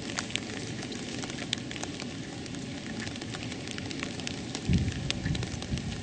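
Light rain falling, with scattered sharp ticks of drops striking close by. Near the end, low uneven rumbling buffets the microphone.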